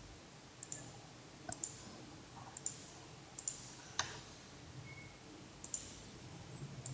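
Faint computer mouse button clicks, about half a dozen at irregular intervals, over low background hiss.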